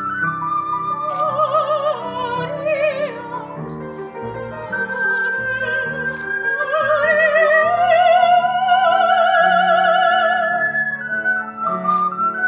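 A woman singing operatically in a high voice with wide vibrato, over an ocarina and lower sustained accompanying notes. Her held notes climb to the loudest passage around the middle and then ease off.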